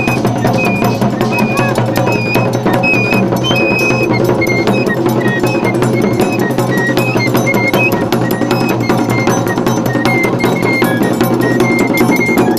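Guyanese masquerade band playing: hand drums beating steadily under a high, piping melody of held notes that steps up and down.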